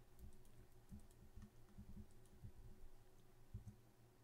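Faint clicks and taps from a computer keyboard and mouse in use, coming irregularly a few times a second, over a faint steady hum.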